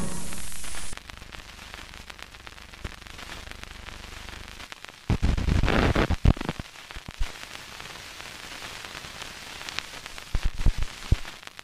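A music sting cuts off about a second in, leaving the hiss and crackle of a worn 16mm film soundtrack running over blank leader, with scattered clicks and a burst of loud pops from dirt and splices partway through and more clicks near the end.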